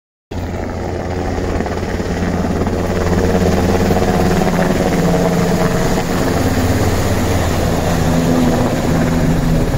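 Rescue helicopter flying low overhead, its rotors and turbine engines making a loud, steady noise with a constant hum.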